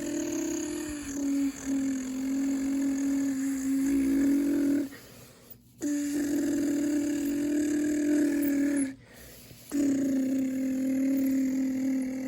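A child imitating a vehicle engine with his voice: a steady, low droning hum held for several seconds at a time, three times with short breaks in between.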